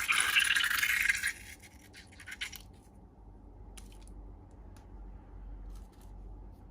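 Hands handling balloons and slime: a loud crackling scratch for the first second or so, then scattered small clicks that grow fainter.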